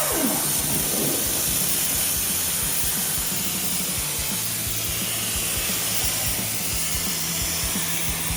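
Plasma cutter torch cutting metal: a loud, steady hiss of the air plasma arc that struck just before, over a low hum. A falling tone sweeps down in the first second.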